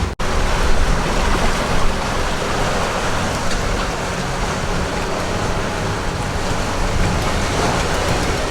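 Steady rushing noise of a sailing yacht under way at sea: wind and water moving past the hull, with a low rumble underneath and no distinct events.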